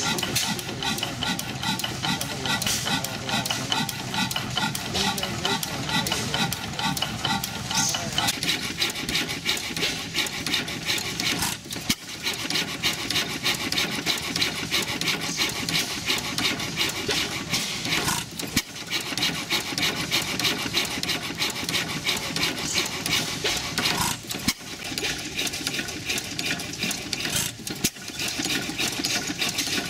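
Antique stationary gas engines running, a fast, even mechanical clatter of valve gear and firing. The sound changes abruptly several times as it moves from one engine to another.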